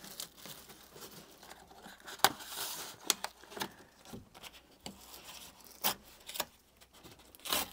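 Parts being handled: scattered light knocks and clicks with rustling, like plastic or paper being moved about.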